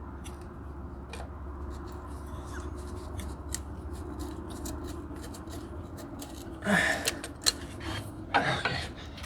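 Light metallic clicks and scraping from hand tools and engine parts being handled while a part is worked into place, over a steady low hum. Two brief voice sounds come about seven and eight and a half seconds in.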